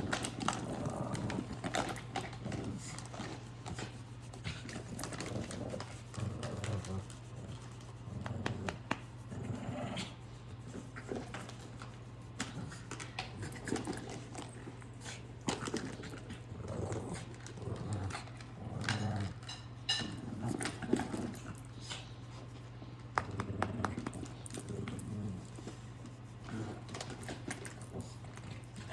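Puppy playing rough with another dog: short growls and grunts coming and going, among scuffling and many clicks and knocks.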